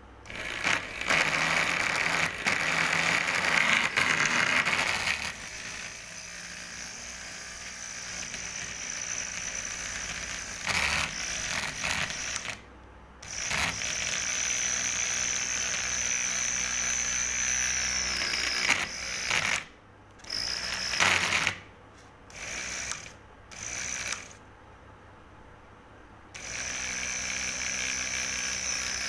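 Small DC electric motor running with a whirring, rattling sound and a high whine. It is switched off and on again several times, cutting out abruptly for a second or two each time.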